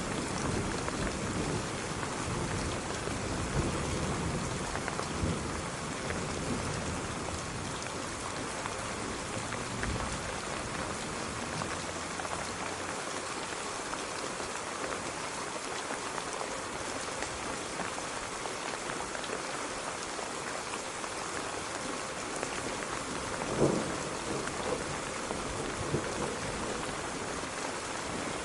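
Steady rain falling, an even hiss throughout, with a low rumble of thunder that dies away about halfway through. A couple of sharper, louder drops or splashes stand out near the end.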